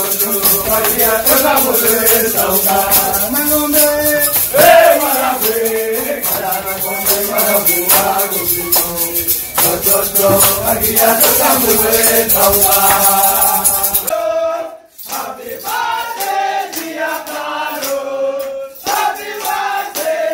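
A group of men singing together to a shaker rattling in a steady rhythm. About fourteen seconds in the sound drops away for a moment, then the singing goes on with less of the shaker.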